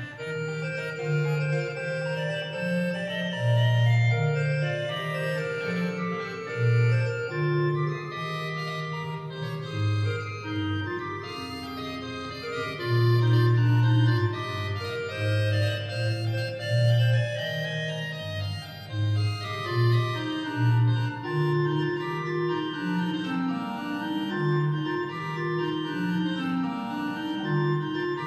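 Church pipe organ playing continuously, with held chords over a moving bass line.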